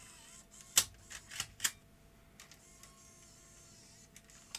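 Sharp plastic clicks of a MiniDV cassette being handled and seated in the open cassette holder of a Sony DCR-HC51E camcorder: four clicks in quick succession about a second in, the first the loudest, and one more near the end.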